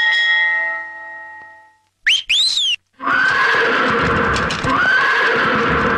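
A bell-like chime rings and fades, then a whistle slides up and down twice, then a horse whinnies loudly from about three seconds in, a sound effect laid over the scene.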